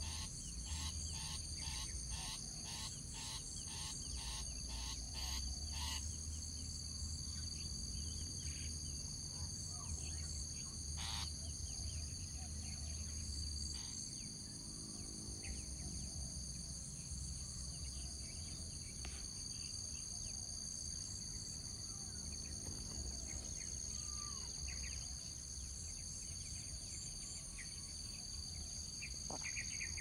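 Steady high-pitched insect chorus of crickets or cicadas. Over it, a short call repeats about twice a second and breaks off about six seconds in, followed by only a few scattered faint bird chirps.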